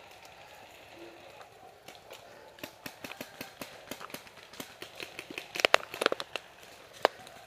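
Footsteps and movement through dry leaf litter and twigs on a forest floor: irregular crackles and snaps, with a louder cluster of knocks about three-quarters of the way through.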